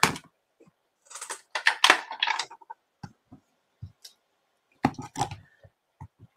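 Small handling sounds of rubber stamping: clicks, taps and rustles as a clear acrylic stamp block is picked up, positioned and pressed onto an ink pad. The loudest is a run of rustling and clicking from about one to nearly three seconds in.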